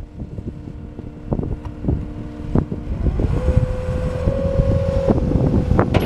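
Caterpillar 259D compact track loader carrying a full bucket of dirt, its diesel engine running with a steady hum and a few sharp clanks. A steady whine comes in about halfway through.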